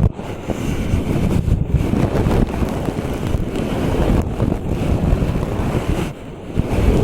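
ASMR brush stroked directly across the microphone, a continuous loud scratchy rustle with a couple of short breaks, the longest about six seconds in.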